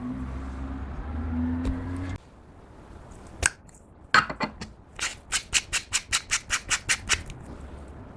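Clear slime being worked by hand, giving a few sharp clicks and then a quick, even run of crackling pops from trapped air, about six a second for two seconds. A steady low hum is heard at first and cuts off about two seconds in.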